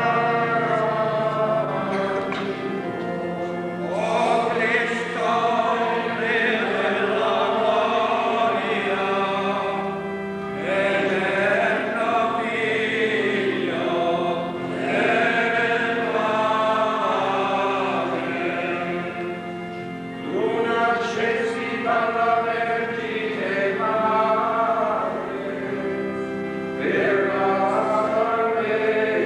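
A group of voices singing a liturgical hymn together in phrases with short breaks between them, over steady held low notes.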